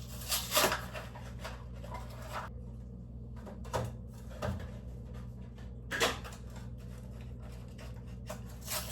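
Scattered knocks, taps and light clatter of groceries being handled and put away, with the loudest knocks near the start and about six seconds in, over a steady low hum.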